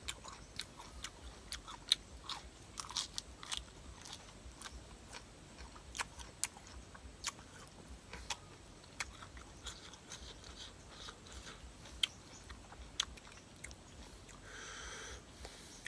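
Close-up eating sounds: chewing and biting into papaya salad with seafood and raw shrimp, with sharp wet crunches and clicks scattered irregularly throughout. A short, steady high tone sounds near the end.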